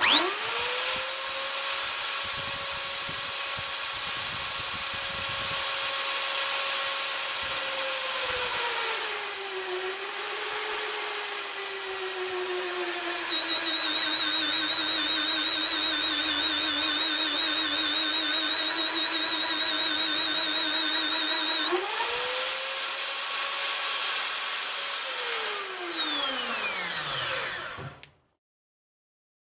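JEI Mini Beast Auto magnetic drill's 1000 W motor starts with a whine and runs up to speed. About eight seconds in its pitch drops and wavers under load as the annular cutter bores. Near the end the pitch rises again as the load comes off, and then the motor is switched off and winds down to a stop.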